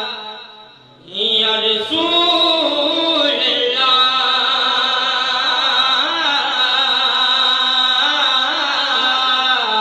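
Men singing a naat, an Urdu/Punjabi devotional song, into microphones in long, wavering held notes. The singing fades to a brief lull just before one second in, then comes back at full strength.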